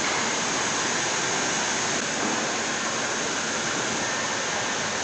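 Steady, even rushing noise of factory-floor machinery and air, with no distinct knocks or tones standing out.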